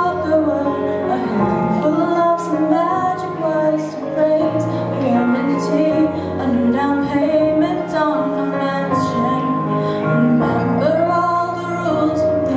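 A young woman singing solo into a handheld microphone over instrumental accompaniment, amplified through the hall's sound system.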